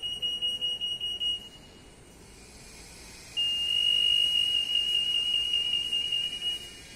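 Xanguard MAX RF anti-theft (EAS) gate alarm sounding, a steady high-pitched tone. It sounds for about a second and a half, stops, then sounds again about a second and a half later and holds for about three and a half seconds. This is the gate signalling a detected security tag.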